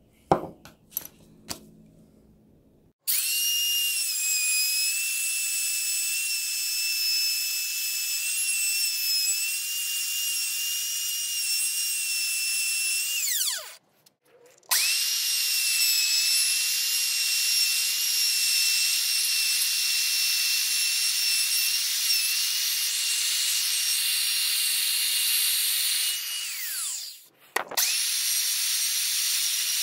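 A few sharp clicks, then an electric router running at full speed with a loud, steady, high-pitched whine as it cuts a circular recess into a round wooden base. It winds down and stops twice and starts up again each time.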